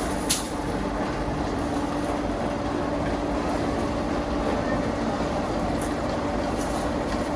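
Factory machinery running steadily with a constant hum, and one sharp metallic click about a third of a second in.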